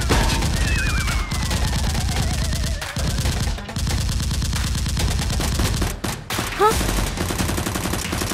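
Rapid automatic gunfire sound effects: dense strings of shots with short breaks. A thin falling, wavering whistle runs over the first few seconds.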